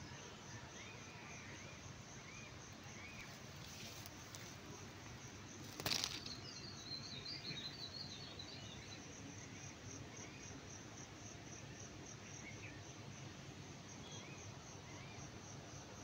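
Outdoor ambience of a steady, pulsing insect trill, with scattered short bird chirps and a brief twittering phrase. One sharp click about six seconds in is the loudest sound.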